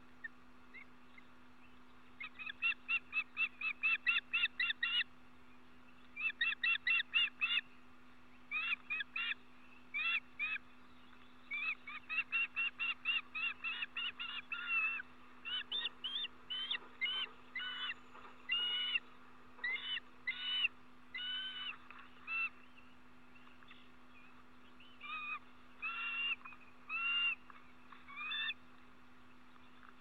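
Ospreys calling: runs of short, high whistled chirps, about four a second, broken by pauses, giving way in the second half to slower, longer slurred whistles. A steady low hum runs underneath.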